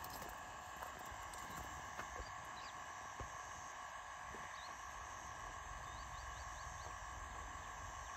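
Faint lakeside ambience: a steady insect chorus with a few short bird chirps, among them a quick run of five near the end, and occasional light clicks.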